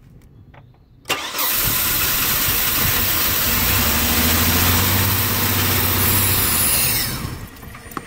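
Aerosol cleaner hissing as it is sprayed into the intake of a Chevrolet S10's 4.3 L V6 while the engine is cranked. The engine catches and runs for a few seconds on the sprayed fuel, then dies near the end; starting on sprayed fuel shows the crank-no-start is a lack of fuel.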